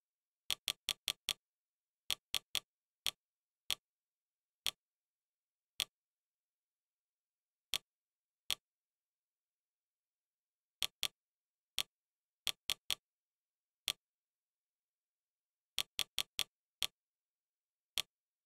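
Fire TV menu navigation sound: short, sharp ticks, one for each step of the on-screen focus, some single and some in quick runs of three to five, with dead silence between.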